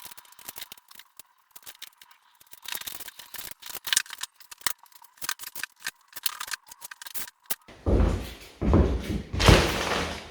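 Plastering tools scraping and clicking in quick, irregular strokes for most of the stretch, as the plaster is worked. Near the end this gives way abruptly to louder, low rumbling bursts of handling noise.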